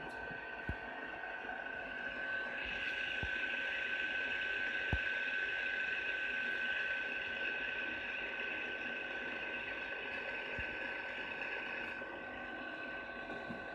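Cooling pump inside a vintage thermal camera's scanner running steadily as it cools the infrared detector down to temperature: a continuous hissing whir with a steady high whine, growing louder a couple of seconds in.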